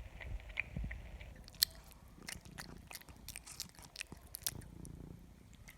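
A cat eating, crunching and chewing food in a quick run of short, sharp bites, densest in the middle.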